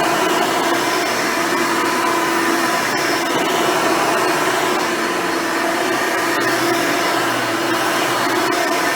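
Hoover Elite upright vacuum cleaner running steadily with a constant motor whine, cleaning with its dual-row brush roll.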